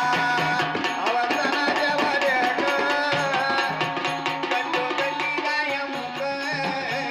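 Live Marathi devotional folk song: a hand drum beats a steady rhythm under a keyboard melody, with a singer's voice over it.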